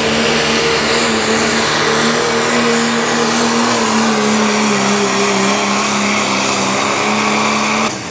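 Pickup truck's turbodiesel engine running flat out under full load while pulling a weight sled. Its pitch sags slowly as the sled bogs it down, with a faint high whine over it. Just before the end the sound drops off suddenly as the driver lifts at the end of the pull.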